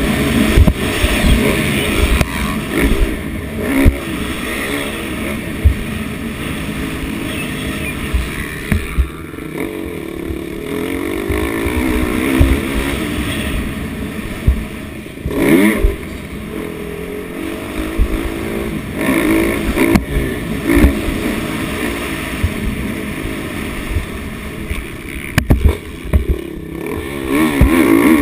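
Dirt bike engine being ridden hard on a motocross track, its pitch rising and falling again and again as the rider revs and shifts through the gears, with frequent low thumps.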